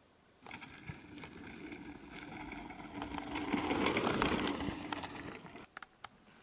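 Mountain bike riding past over a rocky gravel trail: tyres crunching on stones, with many rattles and clicks, growing louder as it comes close, then cutting off suddenly near the end, leaving a couple of single clicks.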